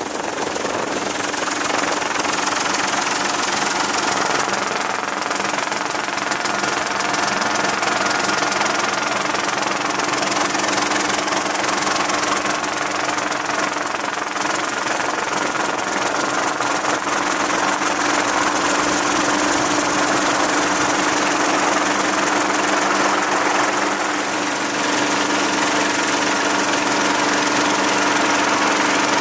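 Steady engine and rotor noise of a helicopter in flight, an unbroken hiss with constant humming tones; the low hum shifts slightly about 25 seconds in.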